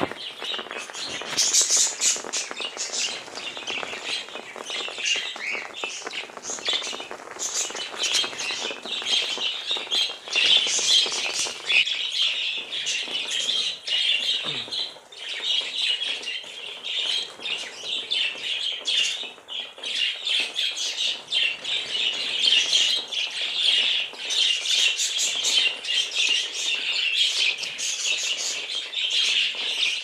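A flock of budgerigars chattering and chirping continuously, many birds calling over one another at once.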